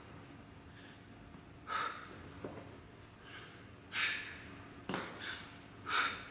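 A woman's hard breathing in short bursts, one roughly every one to two seconds, in time with the reps of a dumbbell overhead press. A faint steady hum runs underneath.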